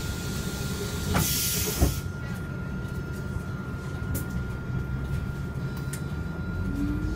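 Solaris Urbino 15 city bus heard from inside the cabin: its engine rumbles steadily under a thin steady whine. About a second in, a sharp burst of compressed-air hiss lasts about a second, the pneumatic doors being worked as the bus sets off, with a few light clicks after it.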